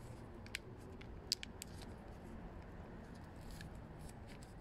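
A few small, sharp clicks and taps of the oil dipstick and its tube being handled, the loudest about a second and a half in, over a low steady background.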